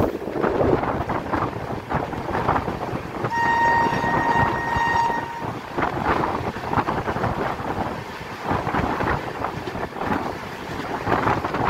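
Train running on the rails, a steady rumble with gusty buffeting on the microphone. About three seconds in, a single steady horn blast sounds for about two seconds.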